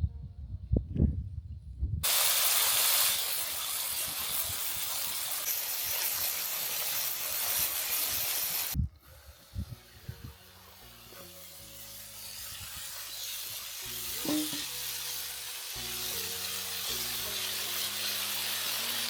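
A few knocks of stirring, then a steady hissing sizzle of cooking on a camp stove. The hiss cuts off abruptly about nine seconds in and comes back fainter, with soft background music underneath.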